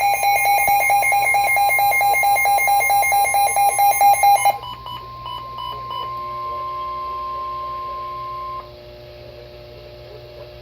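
Emergency Alert System alert tones: rapid electronic beeping for about four and a half seconds, then a single steady alert tone that cuts off abruptly a little after eight seconds in, leaving a faint hum.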